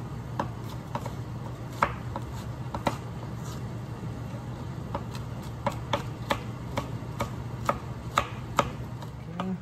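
Kitchen knife chopping tomato and onion on a wooden cutting board: irregular sharp knocks of the blade against the board, coming more closely together in the second half.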